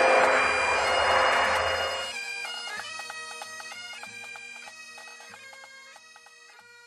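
Bagpipes playing a tune over a steady drone. A loud rushing noise under the pipes cuts off about two seconds in, and the music then fades out.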